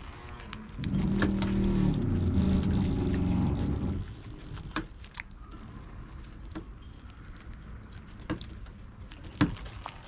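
A motor runs loudly for about three seconds and then stops, followed by a few scattered sharp clicks.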